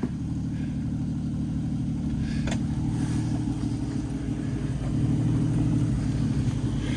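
Off-road 4x4's engine running steadily at low revs as it crawls over rocks, with a single brief knock about two and a half seconds in.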